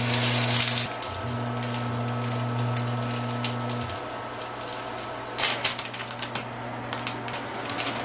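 Small sausages sizzling and crackling in hot oil in a small egg-roll frying pan, with sharp clicks of wooden chopsticks against the pan about five and a half seconds in. A steady low hum runs underneath and stops about four seconds in.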